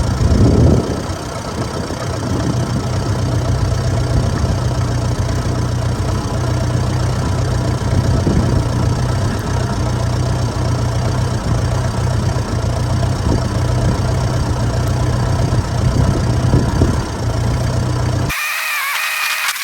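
Tractor engine running steadily under load while pulling a plough, with a brief louder surge at the start. It cuts off abruptly near the end.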